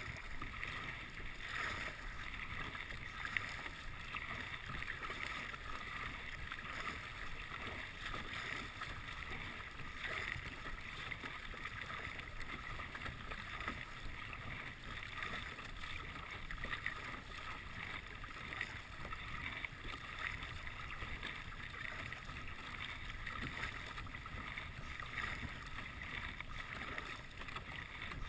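Water splashing and lapping as a double-bladed paddle dips in stroke after stroke and a sit-on-top kayak moves through the water, with a low rumble of wind on the microphone.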